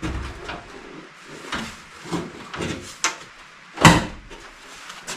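Several separate knocks and clunks with light scraping between them, the loudest about four seconds in, as a sheet-metal front fender is shifted and bumped against the truck body while it is being hung.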